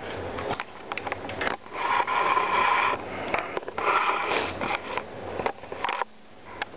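Computer case parts being handled: scattered clicks and knocks, with two longer scrapes, the first about a second and a half in and the second about four seconds in.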